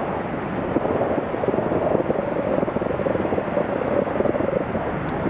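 Boeing 747's four jet engines at takeoff thrust as the aircraft accelerates down the runway and rotates: a steady rushing noise with a held drone.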